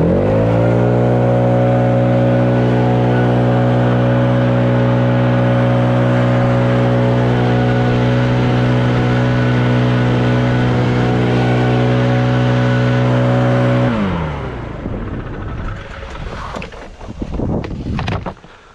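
Leaf blower spinning up, running steadily at full speed for about fourteen seconds, then winding down and shutting off.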